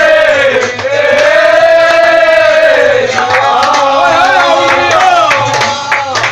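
A group of men chanting loudly together: two long drawn-out notes, then from about halfway a quicker, wavering melody with sharp handclaps.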